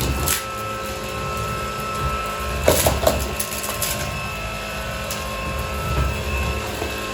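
Cordless stick vacuum running steadily below full power, a motor whine with a brief clatter about three seconds in as pebbles knock against the cleaner head.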